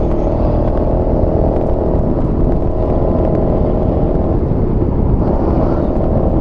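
Honda Forza MF15 scooter's single-cylinder engine running at a steady cruising pitch while riding, over a heavy low rumble of wind on the microphone.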